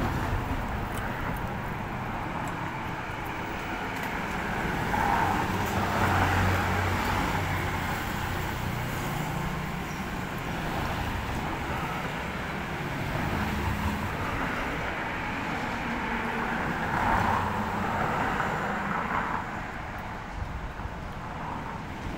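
Road traffic running steadily, with vehicles passing by; it swells twice, about five seconds in and again about seventeen seconds in.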